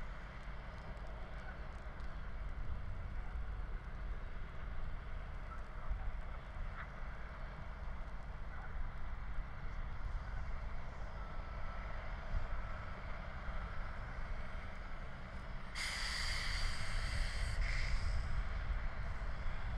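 Low wind rumble on the microphone over a burning grass fire, with faint scattered crackles. About three seconds before the end, a loud hiss lasts about two seconds.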